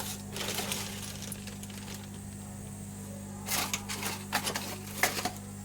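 Small clinks and rattles of tools and parts being handled on a workbench, in two spells, the second and louder starting about three and a half seconds in, over a steady low electrical hum.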